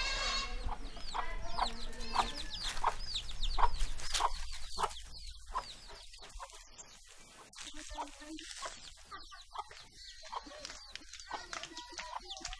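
Chicken clucking: a quick run of short, falling calls that fades away after about four seconds.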